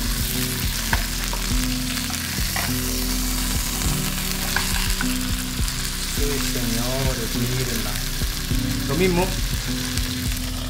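Thick beef burger patty sizzling in a hot frying pan, a steady hiss, with scattered clicks and scrapes of a slotted spatula against the pan as the patty is turned over.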